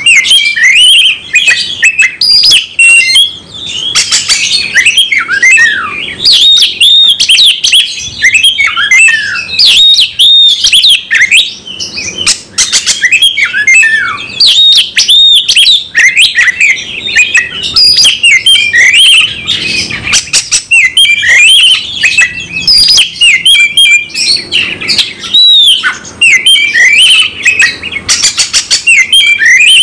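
Oriental magpie-robin (kacer) singing loudly and without pause: a fast, varied run of whistled notes rising and falling, mixed with quick clicking notes, its combative full-repertoire song.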